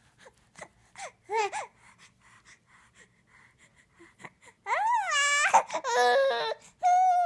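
Baby fussing: a short whimper about a second in, then, past halfway, three loud, high, wavering cries in a row.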